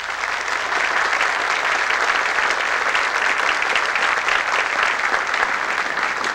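Audience applauding: many people clapping together, steady throughout.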